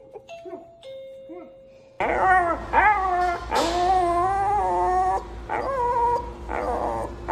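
Faint steady chime tones, then about two seconds in a small dog bursts into loud, long, wavering whining howls, with a short break about five seconds in before the cries resume. The dog is upset and distressed.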